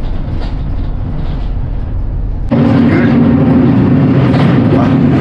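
Bus engine running, heard from inside the passenger cabin as a steady low rumble with road noise. About two and a half seconds in it steps up to a louder, steady engine hum with a strong low note.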